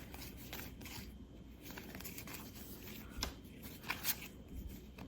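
Trading cards being handled and flipped through by hand: faint rustling with a few light clicks, the sharpest about three and four seconds in.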